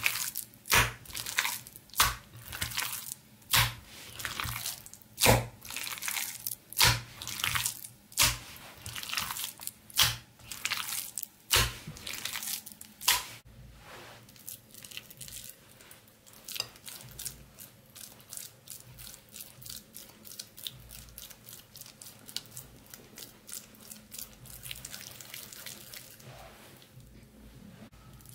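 Hands kneading a wet mixture of minced pork, egg, soaked bun, onion and potato in a ceramic bowl: squelching strokes about one and a half a second, then softer, quicker squishing as handfuls are taken and shaped from about halfway on.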